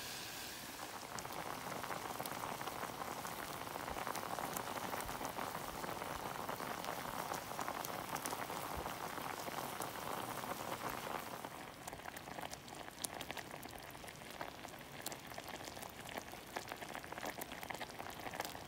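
Wineberry jam at a rolling boil in a saucepan: a steady bubbling with many small pops from the thick, sugary fruit syrup, easing somewhat past the middle. The jam is reducing and starting to thicken.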